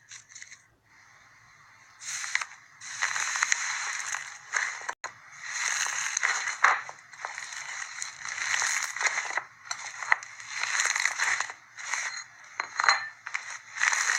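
Slime being squeezed and worked by hand, crackling and clicking in repeated bursts of about a second each, starting about two seconds in.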